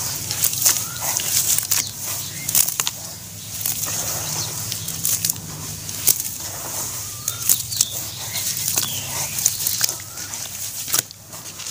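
Hands squeezing and kneading wet charcoal ash paste in a basin of water: steady wet squelching with many sharp crackles and clicks, easing off near the end.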